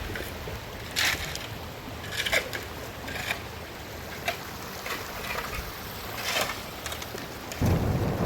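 Steady rain-and-water noise with wind buffeting the microphone, broken by a handful of short sharp sounds. Near the end a gust hits the microphone and the rumble jumps much louder.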